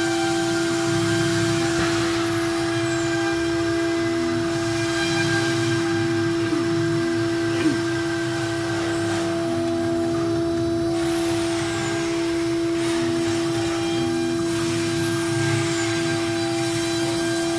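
CNC router spindle running with a steady high whine as its bit carves a wooden log turning in the 4-axis rotary chuck. The lower cutting sound swells and fades as the bit moves along the wood, and there is one sharp tick about eight seconds in.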